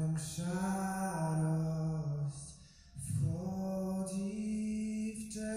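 A voice singing slow, long-held notes in two phrases, with a short break for breath about two and a half seconds in; the second phrase sits a little higher than the first.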